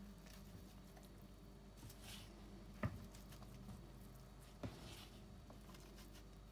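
A cookie cutter pressed down through soft biscuit dough onto a wooden board, giving two faint knocks, about three seconds in and again a little before five seconds, between soft rustles.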